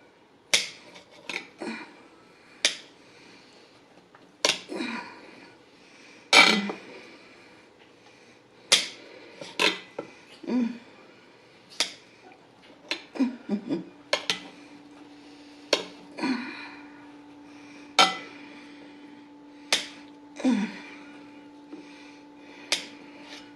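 Kitchen utensils knocking and clinking against dishes during food preparation: a string of separate sharp knocks and clinks, some with a short ring. A faint steady hum comes in about halfway through.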